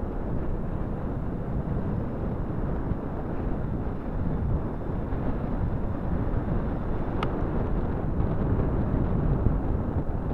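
Wind rushing and buffeting over the microphone of a moving ride camera, a steady low rumble, with a single sharp click about seven seconds in.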